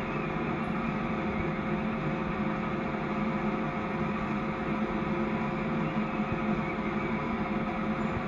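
Sawmill machinery, the Yankee saw and its drive, running steadily with a constant hum.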